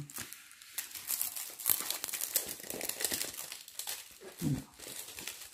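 Crinkling and rustling as a diamond-painting canvas and its plastic packaging are handled and folded, a dense, crackly stream of small crackles.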